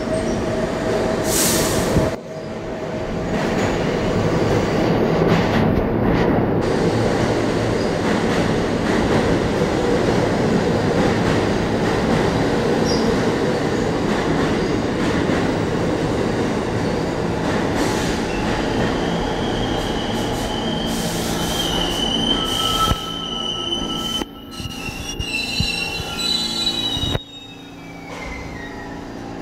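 New York City subway train running into the station with a loud, steady rumble of wheels on rail. From about two-thirds of the way in, a high squeal rises over it as the train brakes, and the noise drops off sharply near the end as it comes to a stop.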